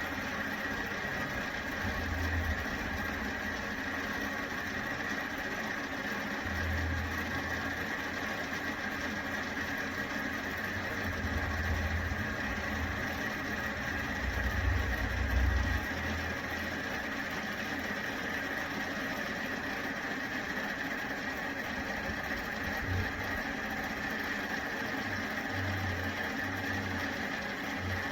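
Space heater's fan running with a steady mechanical drone, with a few soft low thumps.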